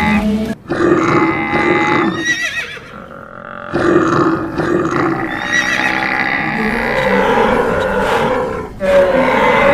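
A mix of animal calls layered over one another, a stampede sound-effect track, with brief dips about half a second in, around three seconds in and near the end.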